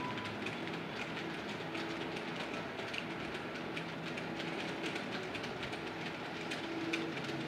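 Model coal train running on the layout's track: a steady running noise with irregular clicks of the wheels over the rail joints.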